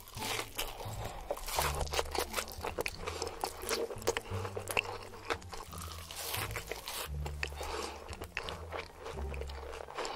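Crunching and chewing of crispy deep-fried food, starting with bites into a hash brown patty: many sharp crunches in quick succession.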